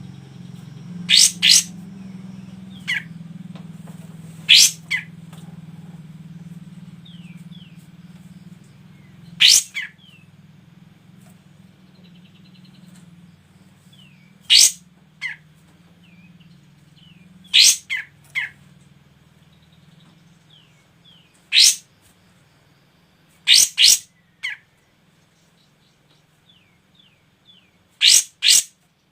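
Cage songbirds calling: loud, sharp chirps, singly or in quick twos and threes every few seconds, over fainter quick down-slurred chirps. A low hum fades out over the first half.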